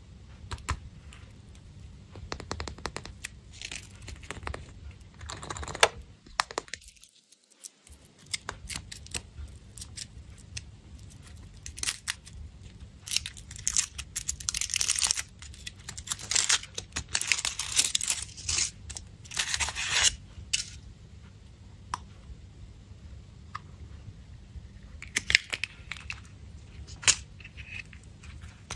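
Candy wrapper foil being torn open and crinkled by hand, in irregular crackling bursts with sharp little clicks and taps, and a brief dead silence about seven seconds in.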